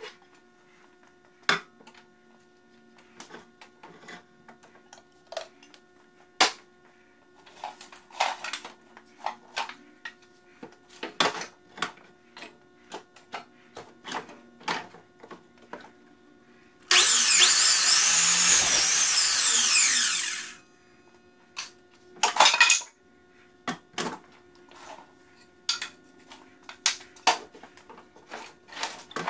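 Sliding compound miter saw starting up and cutting through a wooden board for about three and a half seconds, then spinning down. Around it, scattered knocks and clatter of the board being handled and set against the saw's fence.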